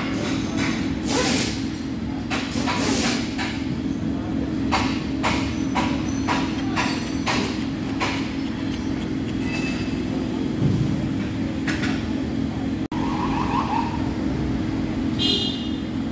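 Steady machine hum of a workshop with a run of sharp metallic clicks and knocks over the first nine seconds or so, from the exposed crankshaft and connecting rods of an opened-up engine being handled; a brief squeak near the end.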